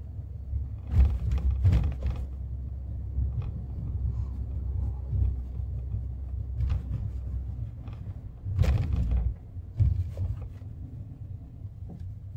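Road noise inside a moving car: a steady low rumble, broken by short louder thumps and rattles at about one to two seconds in, again around eight and a half to nine seconds, and once near ten seconds.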